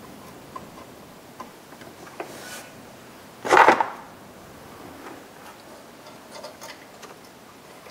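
Light clicks and taps of metal as a new ignition coil is seated and its mounting bolts are started by hand, with one louder clatter about three and a half seconds in.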